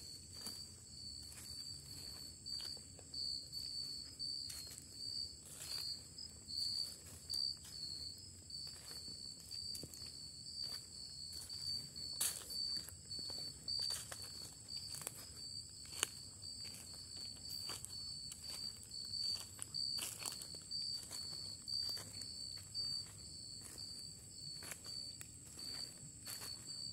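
Footsteps on dry leaf litter, irregular steps through forest undergrowth, over a steady chorus of night insects: a high pulsing trill and a higher continuous whine.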